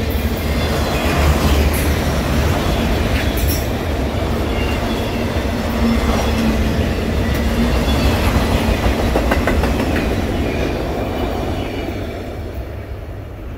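Freight train of multilevel autorack cars rolling past at close range: steel wheels rumble and clack over the rail joints, with a few brief high squeals. The sound fades as the last car goes by near the end.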